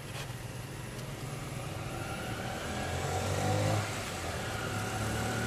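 A motor vehicle's engine running, with a steady low hum and a tone that grows louder over the first few seconds, peaking a little past halfway, then holding.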